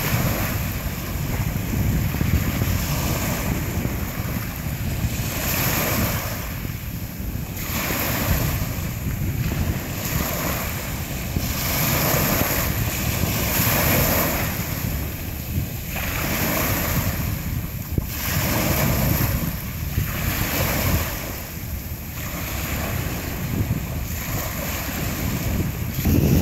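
Small waves breaking and washing over a pebble beach, the rush of surf swelling and falling every couple of seconds. Wind blows on the microphone as a steady low rumble underneath.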